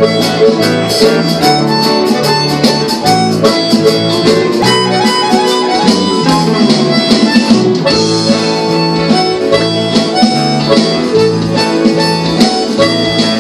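Harmonica playing the lead melody over a live band, with strummed acoustic and electric guitars and drums keeping a steady beat.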